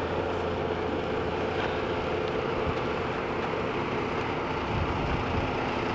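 Steady mechanical drone, like an engine or machine running, with a low hum and a few constant tones and no distinct events.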